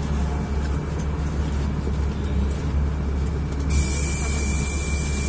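City bus engine running, heard inside the passenger cabin as a steady low hum. About two thirds of the way in, a steady high hiss starts suddenly and continues.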